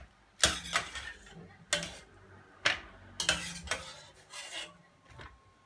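Metal ladle knocking and scraping against a steel pot while boiled cauliflower florets are scooped out and dropped into a foil baking tray. There are several separate clattering clanks, spaced about half a second to a second apart.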